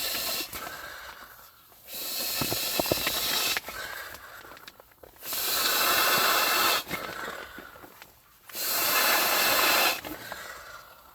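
A person blowing by mouth into the valve of an inflatable sleeping pad: three long rushing exhalations about three seconds apart, with quieter breaths between them.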